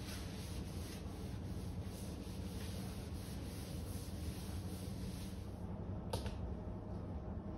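Paper towel, damp with vinegar, rubbing in soft repeated strokes over the metal surface of a kitchen chimney hood, over a steady low hum. A single sharp click about six seconds in.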